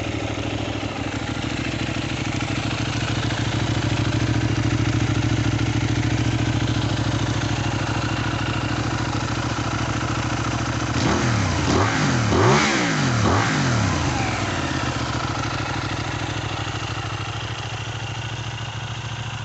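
Benelli 752S motorcycle's parallel-twin engine idling steadily, then given several quick blips of the throttle about halfway through, each revving up and dropping straight back, before settling back to idle.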